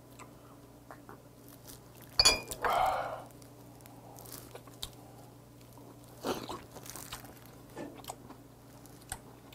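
A man drinking a shot of soju and eating a raw oyster: a sharp glassy clink about two seconds in with a breath out right after, then soft slurping and chewing as he takes the oyster from its shell.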